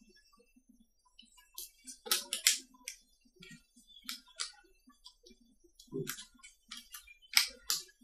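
Wooden rubber band gun mechanism worked by hand: the plywood trigger, release and safety parts clicking and knocking against each other in irregular sharp clicks, with a quick cluster about two seconds in and the loudest pair near the end.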